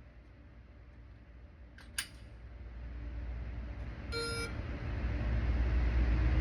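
Shot-timer app beep: one short electronic tone about four seconds in. It follows a single sharp crack about two seconds in, while a low rumble builds toward the end.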